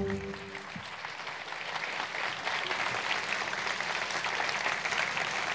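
Audience applauding, growing over the first second or two and then holding steady.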